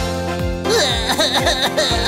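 Upbeat children's background music with a steady kick-drum beat.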